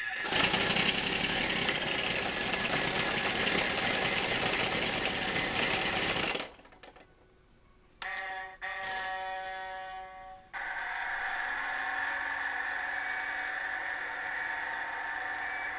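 Electronic sound effects from a toy JCB digger's small speaker, set off by pressing the buttons on its cab roof: a loud, noisy effect for about six seconds, then a short pause, a brief run of tones, and a steady high electronic tone.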